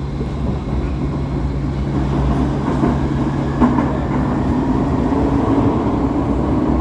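Vienna U-Bahn SGP Type U2 car (rebuilt from a Type U) pulling out of a station into the tunnel: a steady traction hum over wheel-and-rail rumble that grows gradually louder as the train picks up speed.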